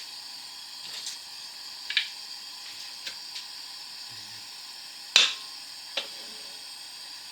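Raw chicken chunks going into a hot frying pan greased with low-calorie spray oil: a faint steady hiss with half a dozen sharp clicks and taps, the loudest about five seconds in.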